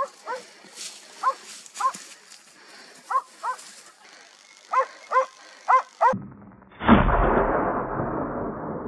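Hunting dog barking repeatedly at a wild boar it has brought to bay, about ten barks, some in quick pairs. About seven seconds in, a single loud bang cuts across and fades away over about two seconds.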